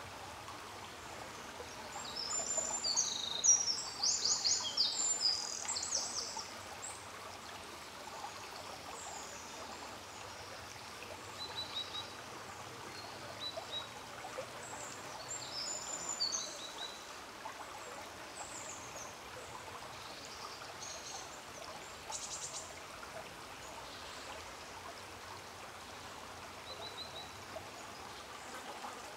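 Songbirds singing: a loud run of fast, high phrases about two to seven seconds in, then shorter phrases and a few brief high chirps scattered through, over a steady faint rush of water.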